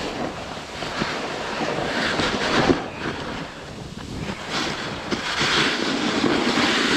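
Snowboard edges scraping over hard-packed snow as the rider carves and side-slips down a steep slope, with wind buffeting the microphone. The scraping hiss swells and fades in surges, loudest about two and a half seconds in and again near the end.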